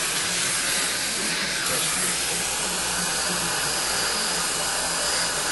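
Steady rushing hiss of dental suction running during periodontal surgery.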